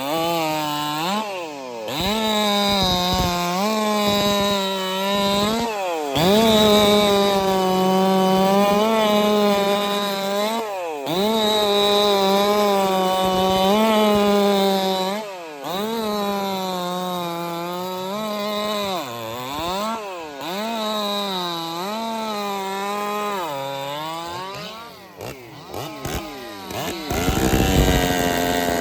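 Ported Jonsered 2165 two-stroke chainsaw cutting wood at full throttle. Its pitch drops as the chain loads up in each cut and climbs back as it frees, over and over, with a few brief breaks. Near the end the saw falls quieter and rougher for a couple of seconds before revving up again.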